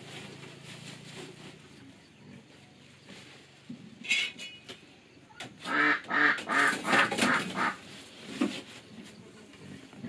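Fowl calling: a short call about four seconds in, then a quick run of about six short calls from about six to eight seconds, the loudest part.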